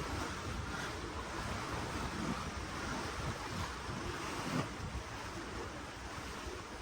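Ocean water washing and rushing steadily, with wind gusting on the microphone as a low buffeting rumble.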